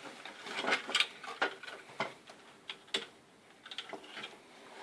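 Irregular small clicks and knocks of plastic parts of a toy RC truck being handled and worked loose during disassembly.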